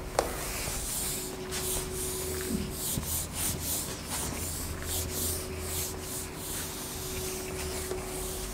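Handheld eraser wiping a whiteboard in repeated dry rubbing strokes, a rapid series of swishes.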